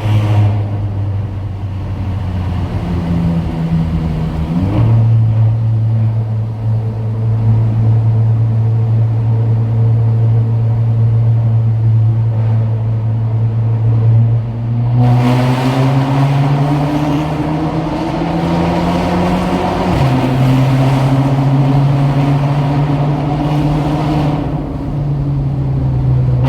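Ford Escape running, with a strong steady low drone, the noise complained of in the transmission tunnel. The pitch steps up about five seconds in, climbs with the revs from about fifteen seconds, and drops back suddenly around twenty seconds.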